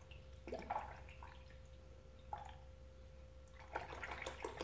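Antifreeze pouring from a plastic gallon jug into a funnel on a car's radiator filler neck, with a few irregular gurgles and splashes as it fills the cooling system.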